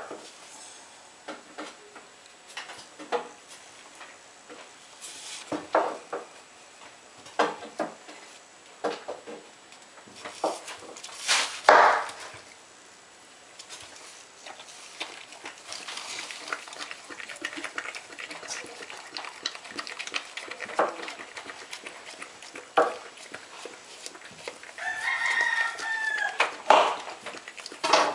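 A rooster crowing once, about a second long, near the end, over scattered short clucks and rustles from chickens.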